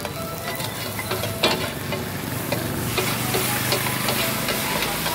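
Egg and lentil mixture frying on a large flat iron griddle, a steady sizzle with quick, irregular clicks of a metal spatula chopping and scraping on the griddle.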